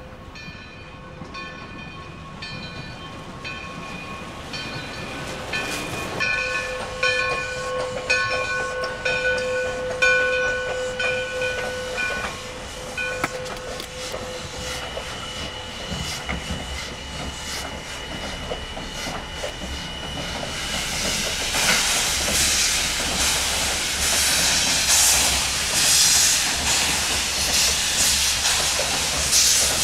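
Steam locomotive sounding its whistle in a series of sustained tones, then its exhaust chuffing and hissing, getting louder about two-thirds of the way through as it works a passenger train across a trestle.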